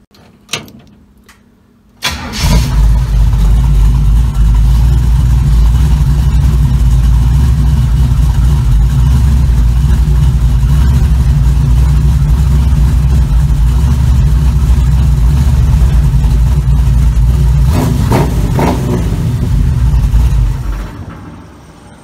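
Small-block Chevy 350 V8 in a 1936 Chevy coupe catches about two seconds in and runs loud and steady for some eighteen seconds, then dies away near the end.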